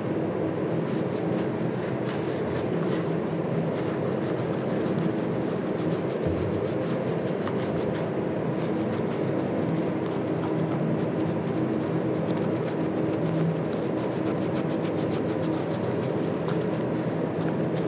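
Cloth rubbing over old leather shoes in quick repeated strokes, the shoes being rubbed down with benzene so they do not fall apart. A faint steady low hum runs underneath.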